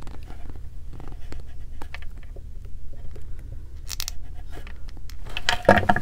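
Small clicks and scrapes of jewelry pliers working metal jump rings on a beaded bracelet, with a louder clatter near the end as the pliers go down on the table.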